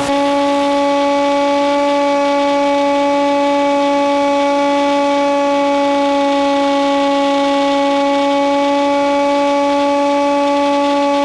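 A steady, unchanging buzzing hum on one low pitch with a stack of overtones, with a brief click right at the start.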